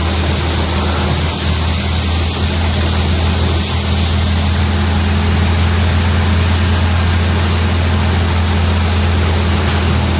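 Stump crusher wood chipper running steadily: a loud, even low drone with a broad rushing noise over it.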